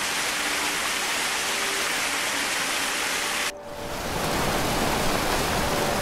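Rushing whitewater of a mountain stream cascading over boulders, a steady, even rush. About three and a half seconds in it cuts abruptly to a second stretch of rushing water with more low rumble.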